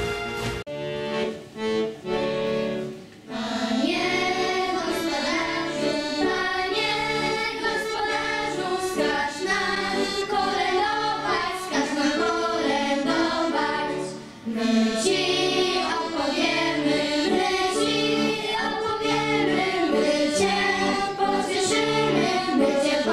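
A children's choir sings a Polish Christmas carol in unison to instrumental accompaniment, with short pauses between phrases. A television station's intro jingle ends in the first second.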